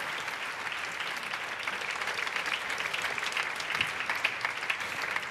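Theatre audience applauding, many hands clapping in a dense patter that grows a little thicker in the middle.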